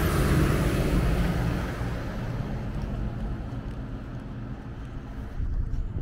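Heavy dump truck passing close by on the street, its engine rumble and tyre noise loud for the first couple of seconds, then fading into lighter road traffic noise.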